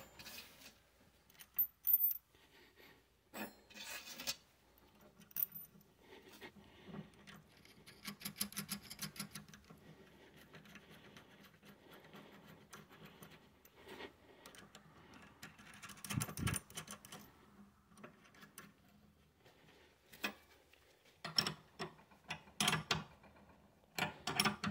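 Faint, scattered metal clicks and clinks of a Falcon F05205 inner tie rod removal tool being fitted and adjusted on a steering rack's tie rod, with a run of quick fine ticks about eight seconds in and a louder knock about halfway through. Near the end a spanner is brought to the tool, with a few more metal clicks.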